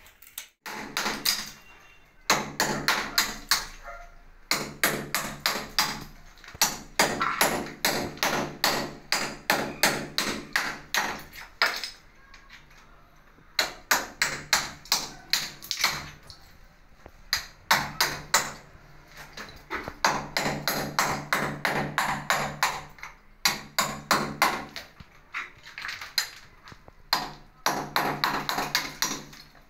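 Hammer chipping old mortar and tile bed off a bathroom wall: fast runs of sharp knocks, several a second, broken by short pauses.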